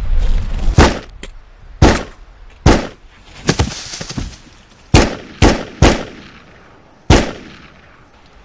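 Pistol fired about eight times at uneven intervals, each a sharp crack, with three quick shots in a row about five seconds in.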